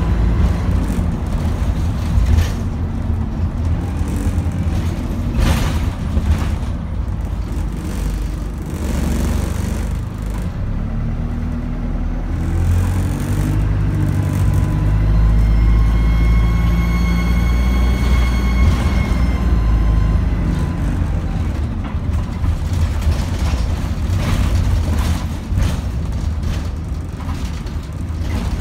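Dennis Dart single-deck bus under way, heard from inside the passenger saloon: a steady low engine rumble, with a whine that climbs in pitch and falls again in the middle as the bus pulls along. Occasional sharp knocks and rattles come through.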